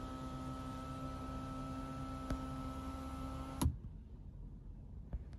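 A steady machine hum with a clear tone over a low rumble, cut off with a click about three and a half seconds in; afterwards only a faint rumble and a couple of small ticks.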